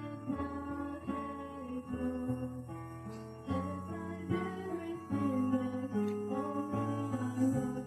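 Music led by acoustic guitar over a bass line whose notes change about every second.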